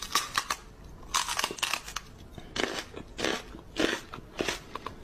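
A person's mock-biting mouth noises against a Pomeranian puppy's fur: an irregular string of short crunchy smacks, several a second.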